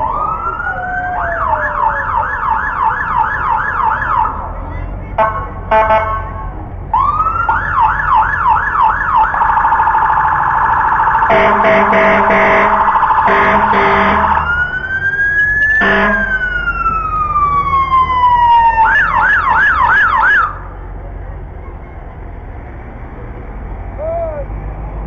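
Emergency vehicle sirens switching between a fast warbling yelp and a slow rising-and-falling wail, with several short steady blasts in the middle. The sirens cut off suddenly about twenty seconds in.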